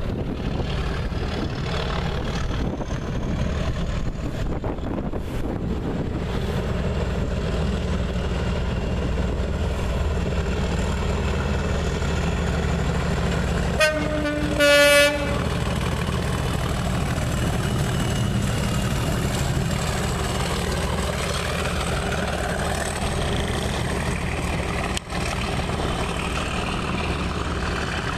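Class 37 diesel locomotive's English Electric V12 engine running under power as it hauls a train through, steady and loud. Its horn sounds about halfway through: a short toot followed straight away by a longer blast.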